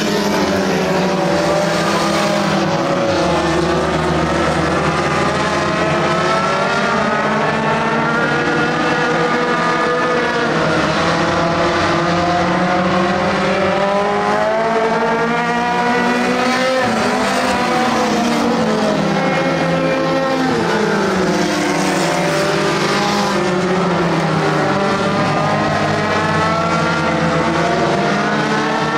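Several dirt-track race car engines running together, their pitches rising and falling and overlapping as the cars rev and lift around the oval.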